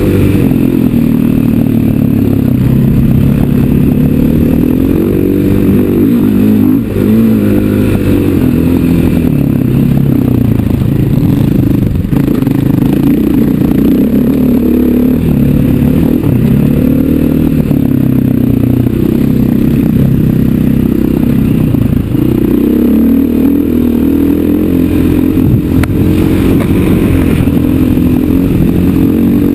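KTM 500 EXC dirt bike's single-cylinder four-stroke engine running under load on a dirt trail, its pitch rising and falling continually as the throttle is worked.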